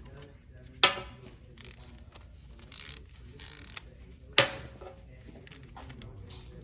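Hand tools on a wheel's lug nuts: two sharp metallic clanks about three and a half seconds apart, each ringing briefly, with light clicking and rustling between.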